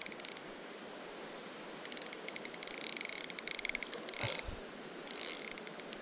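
Pflueger Trion spinning reel being cranked against a hooked, fighting fish, its gears ticking rapidly in several short bursts.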